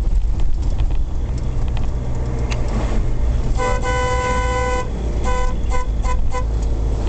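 Vehicle horn honking: one long blast of about a second, then a quick run of several short toots. Underneath is a steady low rumble of engine and road noise.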